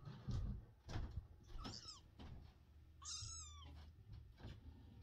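A kitten mewing twice: high-pitched cries about a second and a half apart, the second longer. Soft low thumps and rustling run underneath.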